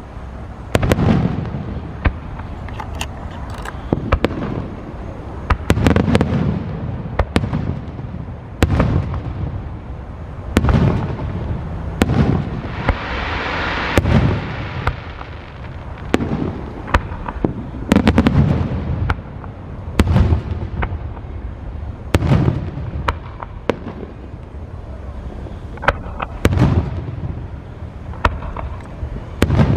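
Aerial fireworks bursting overhead: a string of loud booming shell bursts every second or two, each echoing away, with a long hissing crackle midway through.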